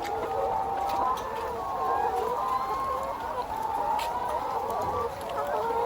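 A flock of chickens in a poultry house, many birds clucking and calling at once in a steady, overlapping din.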